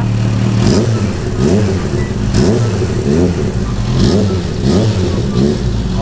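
Kawasaki Z H2's supercharged inline-four being revved through a Two Brothers aftermarket exhaust canister on a stationary bike: about seven short throttle blips, each rising and falling in pitch over the idle.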